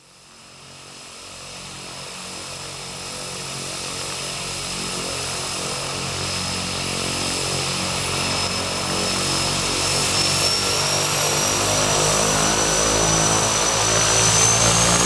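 Propeller aircraft engine running with a high whine, fading in from silence and growing steadily louder, the whine rising slightly in pitch near the end.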